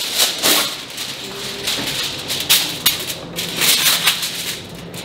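Sheet of aluminium foil crinkling and crackling as it is handled and smoothed flat, in a quick series of sharp rustles.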